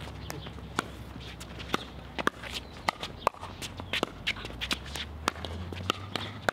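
Pickleball rally: a hollow plastic ball popping off paddles in a quick run of sharp pops, roughly one every half second to a second, with sneakers shuffling on the hard court.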